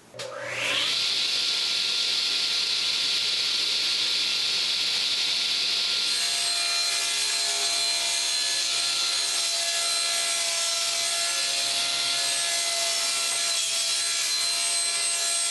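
Table saw switched on, its motor spinning up with a rising whine over the first second, then running steadily while the blade rips a plywood panel to width, the cut adding a harsher high hiss from about six seconds in.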